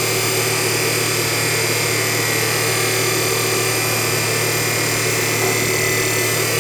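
A 24-volt, one-horsepower electric motor running steadily at about 2,280 rpm, braked by a wire rope dragging on its pulley in a Prony brake test. The sound is an even running noise with a few constant tones.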